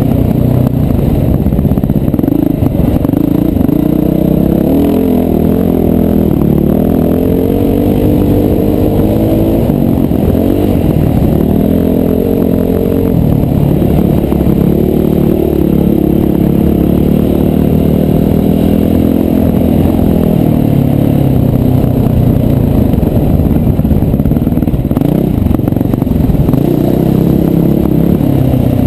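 Enduro dirt bike engine running while riding a dirt track, revving up and down with the throttle, heard from a helmet-mounted camera.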